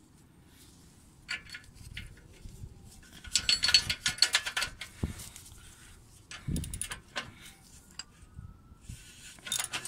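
Metal clicking and clinking of an oxygen-sensor remover tool and wrench being fitted onto an exhaust O2 sensor, with a quick run of rapid clicks a few seconds in, then a sharp knock and a dull thump.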